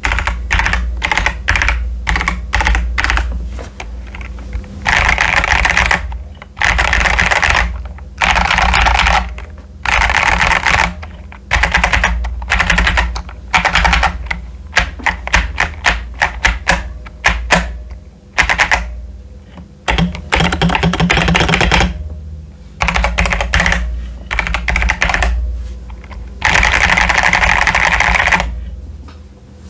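Typing on a modded CIY Tester 68 mechanical keyboard with stock Akko Jelly Purple switches and PBT keycaps: fast runs of key clacks lasting about a second each, with short pauses between. A steady low hum lies underneath.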